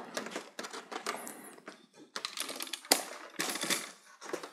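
Parts of an opened LED TV's backlight assembly being handled: a quick, irregular run of small hard clicks and rattles.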